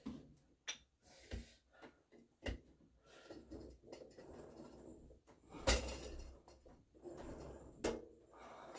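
Marcy MWM-990 cable home gym in use for rope tricep pushdowns: a scattering of knocks and clicks from the weight stack and cable, the loudest a little past halfway, with soft rustling in between.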